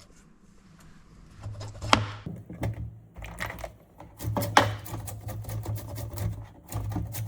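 A knife scraping scales off a fish in quick, irregular strokes, with a rattle of small clicks and a few louder scrapes.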